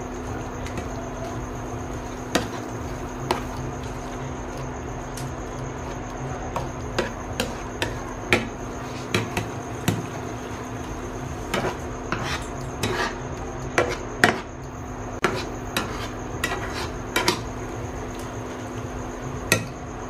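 Slotted spatula stirring and mashing soft aubergine in a non-stick frying pan, with irregular taps and knocks against the pan and scraping. A steady hum and faint high whine run underneath.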